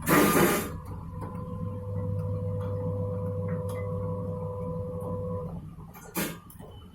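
Top-loading washing machine's motor running a wash agitation stroke: a steady hum with a higher whine that starts about a second in and cuts off about five and a half seconds in. A short loud rushing noise comes right at the start.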